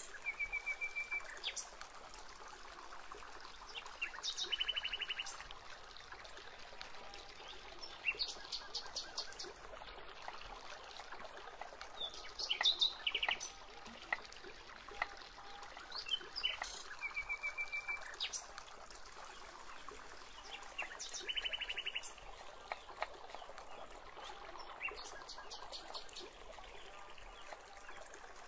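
Birds calling in the surrounding forest, short rapid pulsed trills repeating every few seconds, over a faint steady hiss of outdoor ambience. Now and then faint taps of a knife on a wooden board as a shallot is sliced.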